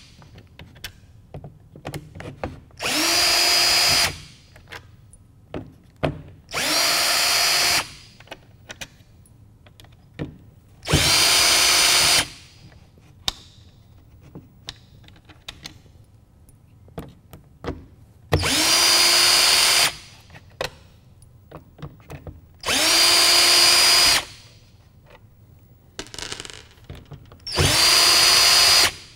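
Cordless drill-driver backing out the small screws around an instrument-cluster lens: six short runs of about a second and a half each, the motor whine rising as it spins up and then holding steady. Light clicks and taps fall between the runs.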